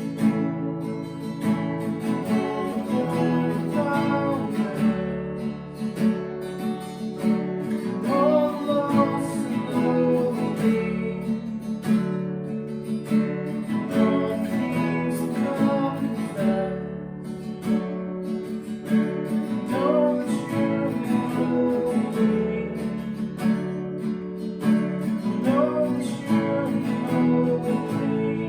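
A worship song played on a strummed acoustic guitar, with melody lines rising and falling over the chords.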